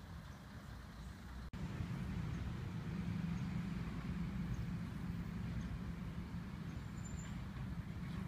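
Outdoor background noise: a steady low rumble with no distinct events, broken by a momentary dropout about one and a half seconds in where the recording cuts, and a little louder after it.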